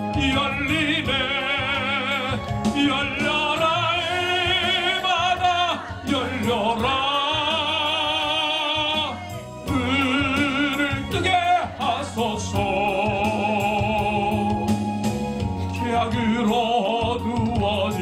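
A man singing a Korean gospel song into a microphone over backing music, holding long notes with heavy vibrato.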